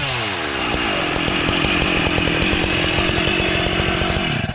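Husqvarna 272 petrol chainsaw at full throttle bogging down as its chain bites into cut-protection chainsaw pants: the pitch falls sharply as the pants' white fibres pull out and jam the chain drive, then the saw labours unevenly and drops off suddenly near the end.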